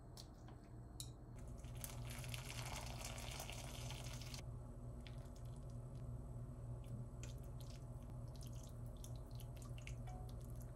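Malatang broth poured from a ceramic pot into a ceramic bowl, splashing for about three seconds. It is followed by wet plops and scattered light clicks of chopsticks against the pot as the remaining ingredients go in.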